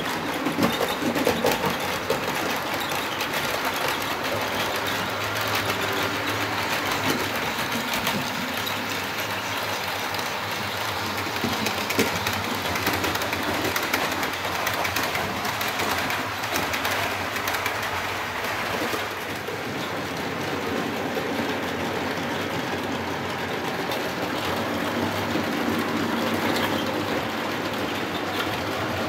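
Model trains running on the layout's track: a steady whirr of small electric motors with a continuous fine clicking of wheels over rail joints.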